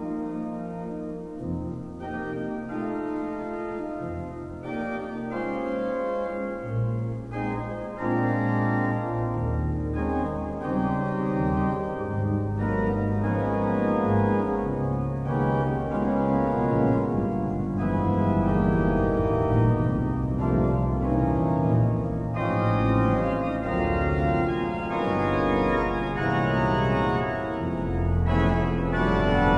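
Church pipe organ playing sustained chords on the manuals. Pedal bass notes come in about seven seconds in, and the sound grows fuller and louder.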